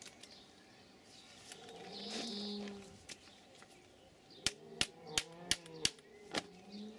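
Five or six sharp knocks about three a second, the loudest sounds here: a socket stuck on a wheel nut being knocked loose. Earlier, a low drawn-out call.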